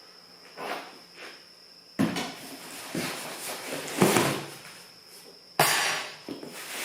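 Cardboard box and packaging being handled while parts are unpacked: several bouts of scraping and rustling with knocks. The loudest comes about four seconds in, and another starts sharply near the end.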